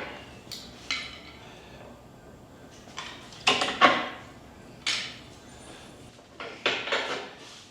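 Metal clanks and knocks, about seven spread over several seconds, some in quick pairs: a big-block engine and its hoist rigging being worked out of a tight engine bay.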